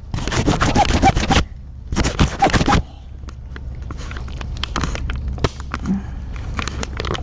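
Handling noise on the camera's microphone: two loud rubbing, scraping stretches in the first few seconds as the smudged lens is wiped and the crooked camera straightened, then softer scattered clicks and taps over a low hum.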